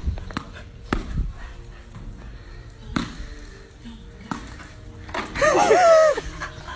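A tennis ball bouncing on a hard floor: a string of separate knocks over the first few seconds. About five seconds in comes a loud, wavering cry that rises and falls in pitch for about a second.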